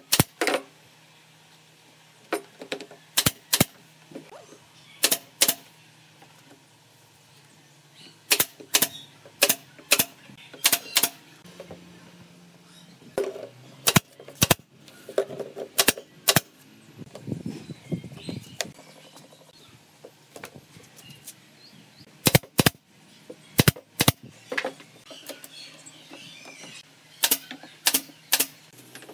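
Pneumatic nail gun firing nails into wooden boards: a string of sharp shots, often two in quick succession, with pauses between as the gun is moved along.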